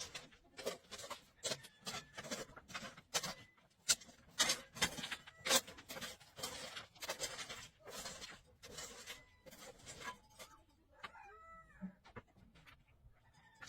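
Irregular short clicks and knocks, several a second, with a brief animal call of bending pitch about eleven seconds in.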